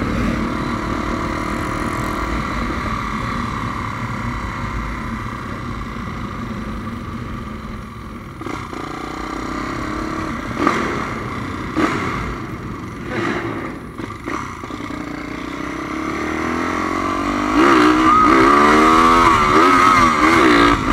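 Single-cylinder four-stroke engine of a modified Honda Tornado motorcycle bored out to 350 cc, running while being ridden. It eases off around the middle with a few short sharp cracks. Near the end it revs up and down repeatedly, the loudest part.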